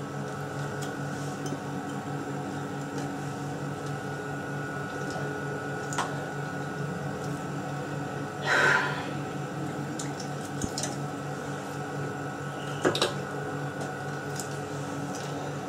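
Pieces of meat being turned over with a fork on a grill pan's wire rack: a few light metal clinks and one short scrape, over a steady kitchen hum.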